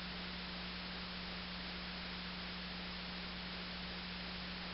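Steady hiss with an even low hum and no events: the background noise of the recording itself.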